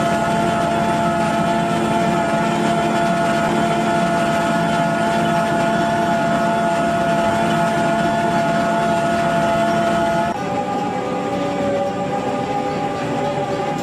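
Trioliet Triotrac self-propelled TMR feed mixer running, a steady machine whine with several held tones over engine noise as its cutter mills silage. About ten seconds in the sound changes abruptly to a lower, different steady whine.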